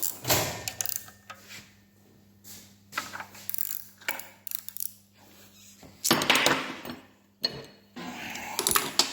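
Ratchet wrench clicking in several short bursts, a second or so each, as bolts on the engine are turned, with some metal-on-metal clinks.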